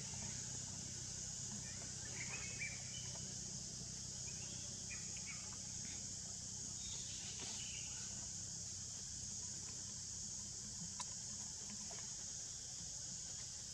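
Steady, high-pitched drone of an insect chorus, with a few short high chirps scattered through the first half.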